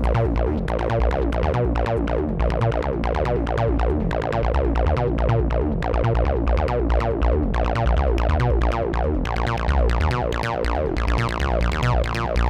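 Electronic dance music with a synthesizer line over a drum-machine beat and heavy bass.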